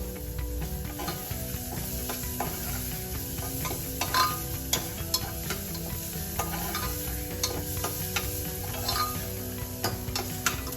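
Onion and a ground paste of garlic, coconut, coriander and ginger sizzling in hot oil in a kadhai while being stirred, the spatula clinking against the pan now and then.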